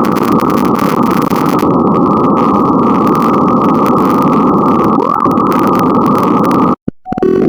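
Loud, harsh synthesized bytebeat-style noise from a GDI malware payload: a dense, gritty buzz with a quick pitch sweep about five seconds in. It cuts out suddenly near the end and a new, more tonal pattern begins as the next payload starts.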